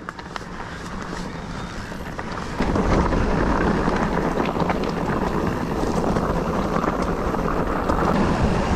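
Wind buffeting the microphone and a mountain e-bike rolling over a rough trail as it picks up speed, with faint clicks and rattles; it gets noticeably louder about two and a half seconds in.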